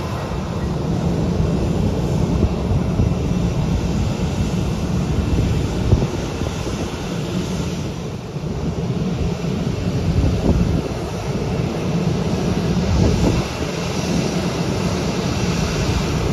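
Jet engines of an Allegiant Airbus A320-family airliner running at taxi power: a steady engine noise. Wind rumbles unevenly on the microphone underneath it.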